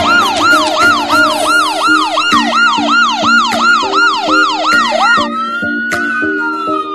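Electronic ambulance siren on yelp, with quick rising-and-falling whoops at about three a second. A little after five seconds it switches to a slow wail that rises and then falls. Background music with a steady beat plays underneath.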